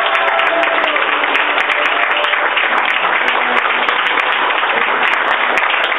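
An audience applauding steadily, a dense wash of many hands clapping at once, with a few faint voices in it.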